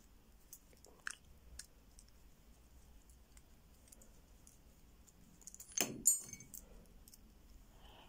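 Small metal parts of an Abus Super Code 158 combination padlock's code-wheel and reset mechanism clicking and clinking as the mechanism is taken apart by hand. There are a few light clicks about a second in, then a louder, briefly ringing metallic clatter just before six seconds in.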